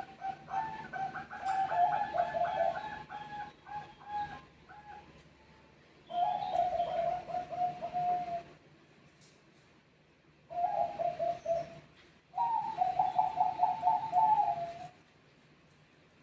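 Zebra doves (perkutut bangkok) cooing back and forth, birds answering one another. There are four bouts of quick rippling coos with short silences between them.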